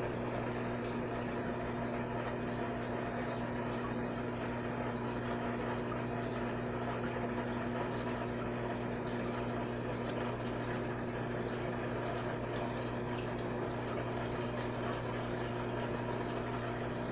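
Water filter in a frog tank running: a steady hum with trickling water.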